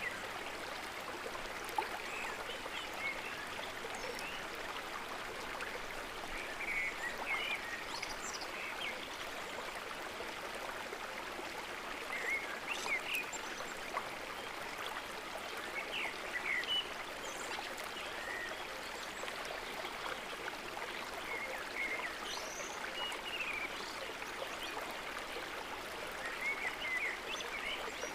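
Flowing stream water with a steady rush, overlaid by scattered short chirping calls every second or two.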